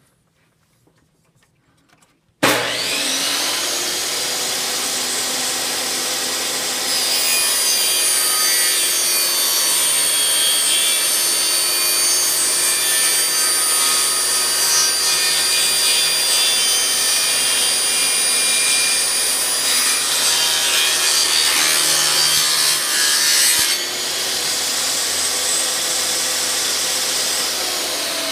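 Kobalt table saw switched on about two seconds in and running free for a few seconds. It then gets louder, with a steady high whine, as the blade cuts through a wood-grain MDF panel, and drops back to free running near the end when the cut is stopped short.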